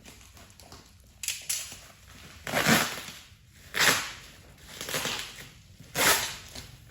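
Packaging being handled and rustling in five short bursts, about one a second.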